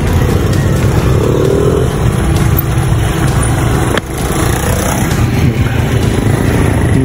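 Motorcycle and motor-tricycle engines running as traffic passes, over a steady low rumble, with a brief dip about four seconds in.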